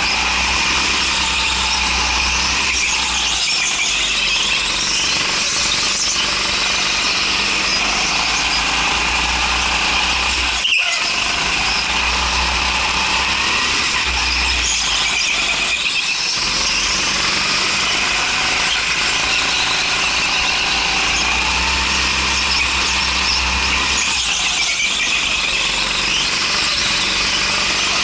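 Go-kart heard from onboard while lapping, with tyres squealing on the smooth concrete through the corners over the kart's engine running under throttle. The engine's low hum swells and fades with the throttle, and there is a brief sharp knock about eleven seconds in.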